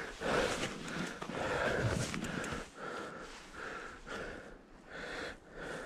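A rider breathing hard and fast, a quick in-and-out breath about every half second, from the effort of cycling through deep snow.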